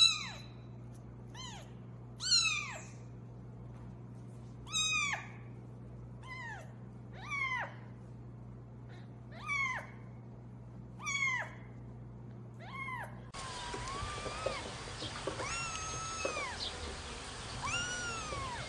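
Young kittens meowing. First a small tabby kitten gives short, high-pitched meows that fall away at the end, one every second or two. About two-thirds of the way through, another kitten takes over with longer, more drawn-out mewing over a background hiss.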